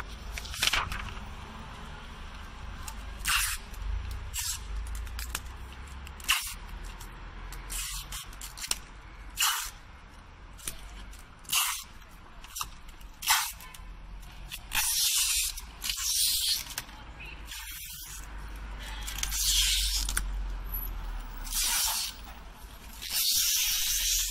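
Posters being stuck onto a shop window: a dozen or so short hissing strokes of paper and tape worked against the glass, the strokes growing longer and closer together near the end.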